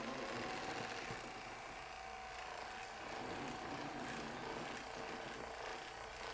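A small motor running with a steady hum that holds one slightly wavering tone, with faint light ticks over it.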